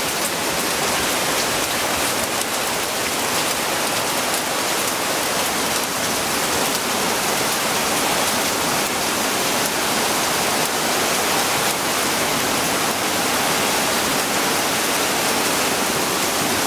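Heavy downpour with the rushing water of a flash flood torrent: a dense, steady hiss.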